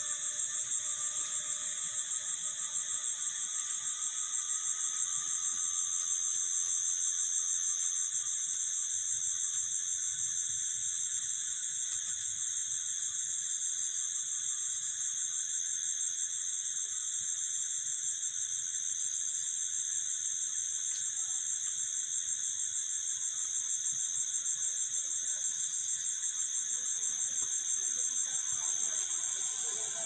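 A chorus of crickets trilling steadily: a continuous, high-pitched, finely pulsing buzz that does not let up.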